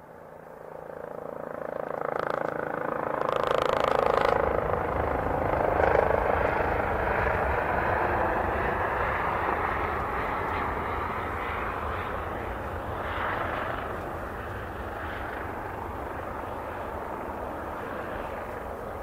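Four-engined Airbus A340's jet engines spooling up to takeoff power as the airliner starts its takeoff roll. The steady jet roar swells over the first few seconds, peaks about six seconds in, then eases slowly as the aircraft moves off down the runway.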